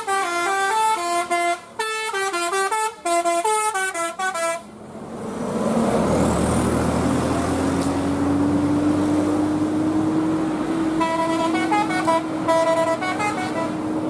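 A bus's telolet Basuri multi-note air horn plays a quick stepped melody, then stops about four and a half seconds in. A loud bus engine follows, its tone rising slowly. About eleven seconds in, the horn melody comes back more faintly for a couple of seconds.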